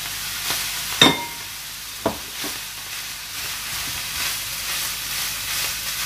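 Chicken, vegetables and cooked rice sizzling in a non-stick frying pan on a gas flame while a spatula scrapes and stirs them. There is a sharp, ringing clack about a second in and a smaller knock a second later.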